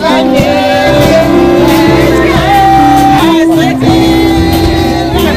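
A hymn sung to live band accompaniment: a singing voice over sustained keyboard chords, with regular drum hits.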